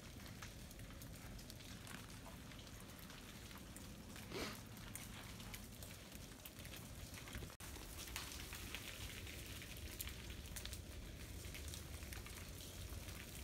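Faint, steady patter of meltwater dripping and bits of ice falling from ice-glazed tree branches in the sun, sounding like light rain, with one short rising sound about four seconds in.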